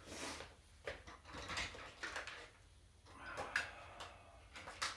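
Faint, scattered taps, clicks and rustles of objects being handled, a few sharp knocks among them.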